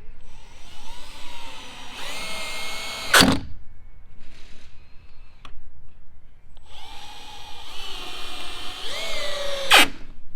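Power drill run twice, about three seconds each, driving screws into wood. Its motor whine climbs in pitch and then holds steady, and each run ends in a sharp clack as it stops.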